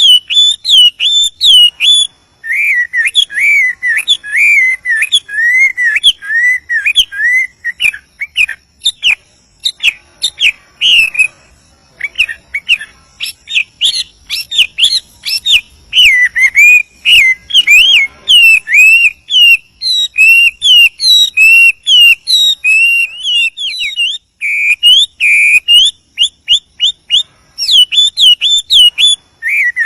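A Chinese hwamei (wambi) singing a long, unbroken song of loud, clear whistled phrases. Slurred notes rise and fall and repeat in quick runs of several a second, with the phrases changing every few seconds.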